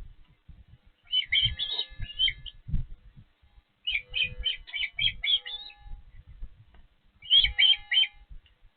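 Osprey calling at the nest: three bouts of rapid, high chirps, the longest about two seconds, with low bumps in between.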